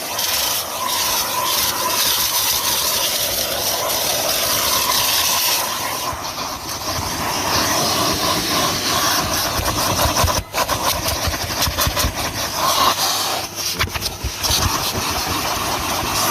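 Kerstar KV25-2 twin-motor commercial vacuum cleaner running, a steady rushing hiss of suction with a whine. In the second half the sound turns choppy and uneven as the nozzle is worked over the car, with a brief sharp dip about ten seconds in.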